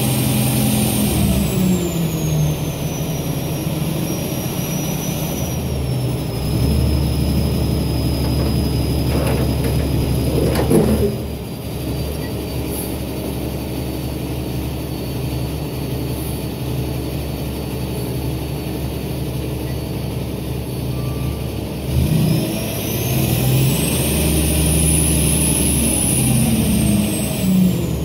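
Kenworth T800 truck engine running to power the hydraulics of a tilting lumber-trailer bed, with a high whine that rises and falls in pitch with engine speed. The revs ease off in the first few seconds, a brief sharp sound comes about eleven seconds in, and the revs climb again from about twenty-two seconds as the bed is lowered.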